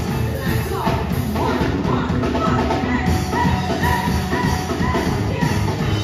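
Steel pan band playing a tune live, a run of short bright repeated notes over a steady low beat.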